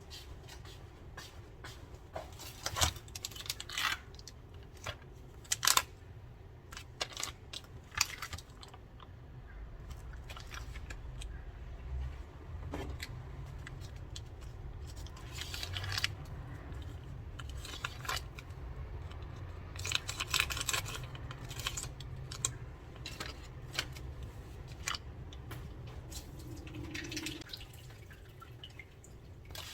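Scattered clicks, taps and brief rustles of small objects being handled, over a low steady hum.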